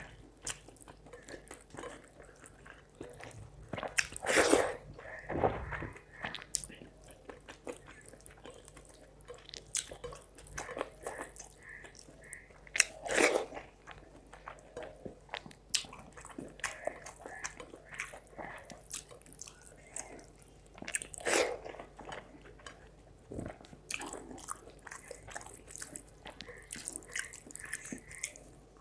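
Close-miked eating of rice and fish curry: steady wet chewing and mouth clicks, with a few louder, longer mouth sounds spaced several seconds apart.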